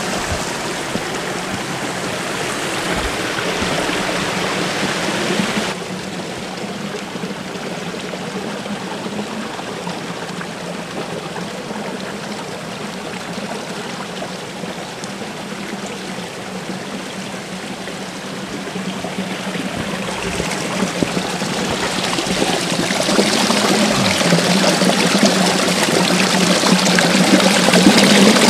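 Small creek bubbling over sandstone rocks, a steady rush of running water. It drops suddenly about six seconds in, then grows louder over the last several seconds where the water pours close by under a log.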